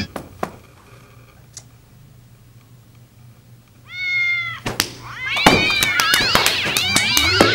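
A cat meows once about four seconds in. From about five and a half seconds there is a loud, continuous tangle of wavering, overlapping cat yowls and screeches.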